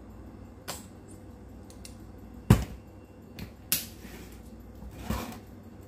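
Kitchen handling noise: about five separate clicks and knocks as a metal measuring spoon of mustard is tipped into a ceramic bowl and a plastic squeeze bottle is handled. The loudest is a low knock about two and a half seconds in.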